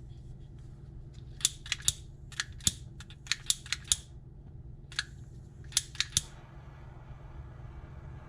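Small handheld lighter being flicked over and over: about a dozen sharp clicks in quick clusters over some five seconds.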